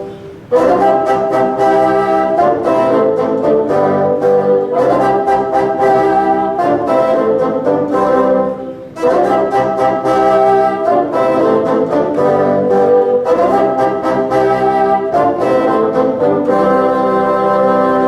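Bassoon ensemble playing live, several bassoons in sustained chords. The phrases break off briefly near the start and again about halfway through.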